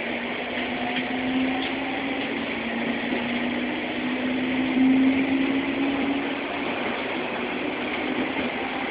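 Sobu Rapid Line electric commuter train running, heard from inside the car: a steady rumble and rush of noise. Over it, a motor hum rises slowly in pitch for the first six seconds or so, then fades out.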